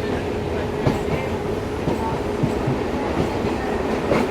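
Passenger train running on the rails: a steady rumble with a faint hum, and now and then a sharp wheel clack over a rail joint.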